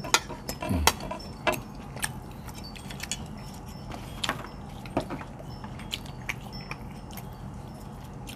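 Scattered sharp clinks and clicks of a fork and spoon on china plates during a meal, several close together in the first two seconds and sparser after that, over a faint steady background hum.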